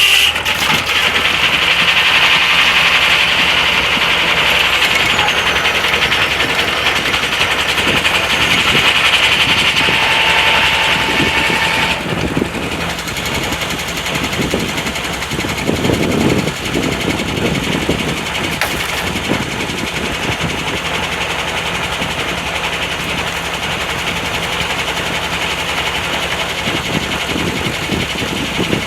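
Corley 395 circular sawmill running: the blade cuts through a log with a loud, high-pitched sound that stops suddenly about twelve seconds in. After that the mill and its power unit keep running steadily without cutting.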